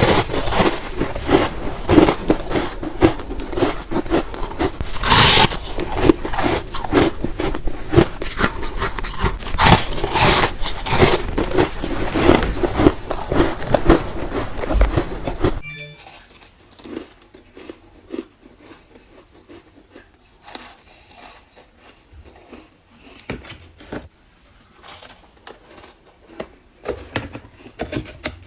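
Freezer frost being bitten and chewed up close: dense, loud crunching and crackling. About halfway through it drops abruptly to much quieter, scattered crunches.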